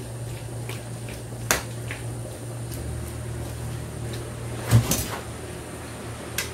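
Metal ladle knocking and clinking against a stainless steel wok while stirring water spinach boiling in the pan: a knock about a second and a half in, a louder double knock near the five-second mark and a lighter one near the end. A steady low hum runs underneath.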